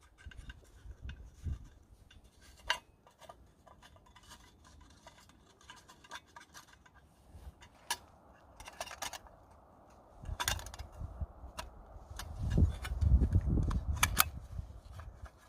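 Scattered light clicks, clinks and scrapes of small metal camping gear being handled. Gusts of wind buffet the microphone with a low rumble, strongest near the end.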